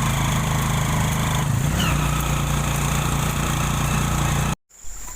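A small engine running steadily, with a brief shift in pitch about a second and a half in. It cuts off abruptly near the end, leaving much quieter background sound.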